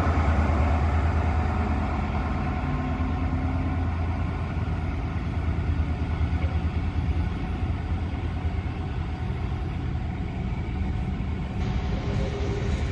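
Diesel train engine running with a steady low throb, loudest at the start and easing slightly.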